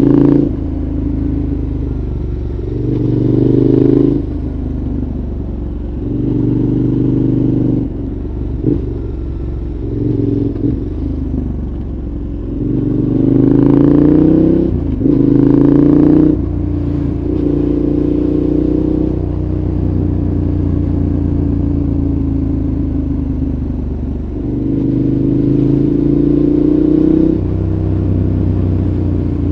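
2014 KTM 1190 Adventure's V-twin engine through a Giannelli exhaust, heard onboard, opening up in repeated short bursts of throttle that rise in pitch. Between them it drops back to a lower, steadier note.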